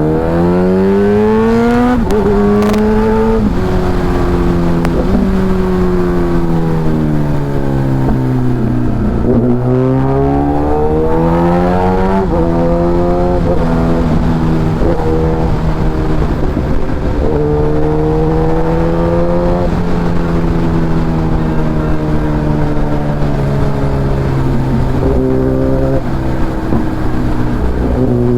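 Kawasaki Ninja ZX-10R's inline-four engine heard onboard while riding: the note climbs and drops back in quick steps as it shifts up in the first few seconds, falls away and builds again near the middle, then holds fairly steady at cruising revs with small rises and dips.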